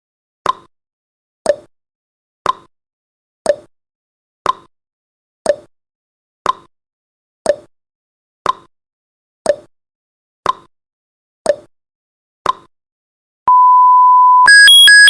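Countdown timer sound effect: a clock-like tick once a second, alternating tick and tock in pitch, thirteen times as the count runs down. Then a steady one-second beep marks zero, followed by a quick run of higher alarm beeps.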